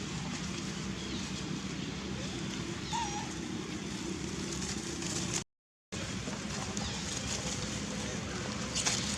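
Steady outdoor background noise with a low hum, broken by one short rising-and-falling animal call about three seconds in. The sound cuts out completely for about half a second a little past the middle.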